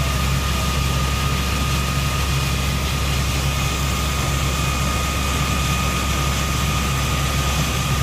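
Muddy water gushing steadily from a tube-well discharge pipe into a flooded pit, driven out by compressed air, over the steady low hum of a heavy engine running. A thin steady whine sits above the rush.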